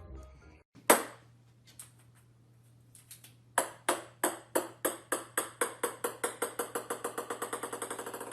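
A single sharp tap about a second in, then from about three and a half seconds a run of light taps that come faster and faster and fainter, over a low steady hum; the run cuts off suddenly at the end.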